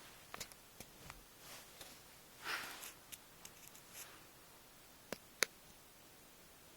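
Soft, noisy breaths of a sleeping cat snoring faintly, the clearest breath about two and a half seconds in. A few sharp clicks break in, the loudest two close together about five seconds in.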